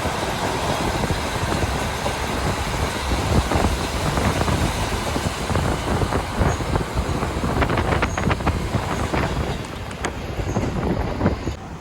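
KiHa 40 diesel railcar running along the line, heard from inside the car: a steady rumble of engine and wheels, with a run of sharp clicks from the rails in the second half. The noise drops off suddenly near the end.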